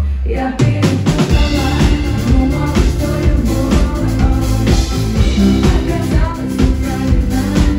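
Live pop song: a woman singing into a microphone over a band with a drum kit. After a short break at the very start, the full band comes back in with a drum hit about half a second in and plays on with a steady beat.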